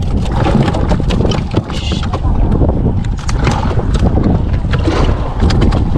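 Wind buffeting the microphone on a small boat at sea, a steady low rumble, with many scattered clicks and knocks.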